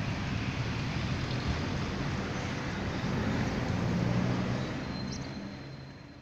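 Outdoor street ambience: a steady rush of road traffic, fading out near the end.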